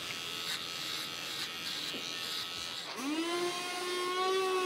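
Electric animal clippers running as a dog's belly is shaved for surgery. About three seconds in, a motor hum starts, rising briefly in pitch and then holding a steady whine.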